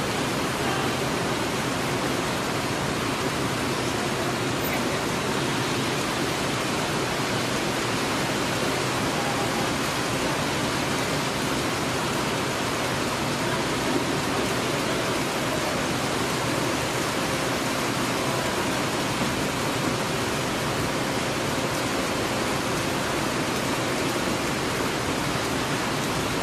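Steady hiss of heavy rain, even and unchanging throughout.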